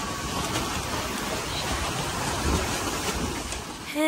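Wind on the microphone and water rushing and splashing past the trimaran's hulls under sail, a steady rough noise. Music starts abruptly right at the end.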